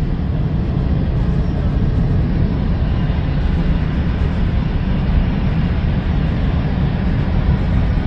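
Loud, steady low rumble with a hiss over it: outdoor street noise on a phone's microphone, with no single source standing out.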